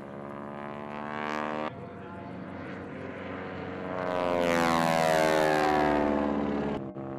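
Aerobatic biplane's piston engine and propeller droning, its pitch rising a little before breaking off abruptly about two seconds in. From about four seconds in it grows loudest, with its pitch falling, then stops abruptly near the end.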